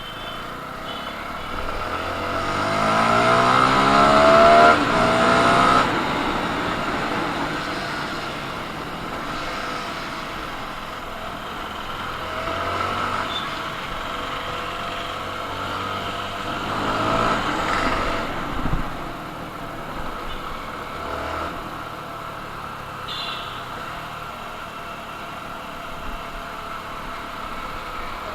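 CFMoto 300NK motorcycle's single-cylinder engine under way, revving up with a rising pitch to its loudest about four to five seconds in, then falling off around six seconds. It then runs steadier, with another brief rise in revs around seventeen seconds.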